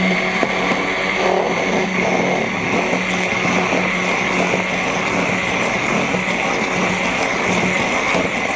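Immersion (stick) blender running steadily in a tall jar, blending a broken mayonnaise back into an emulsion as it thickens. A steady motor hum with a high whine over it.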